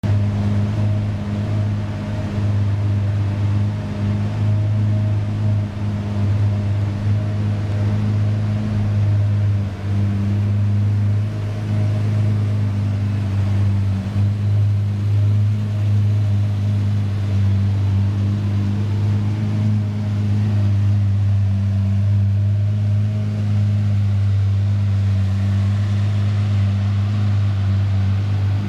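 2004 Lamborghini Murciélago's 6.2-litre V12 idling steadily.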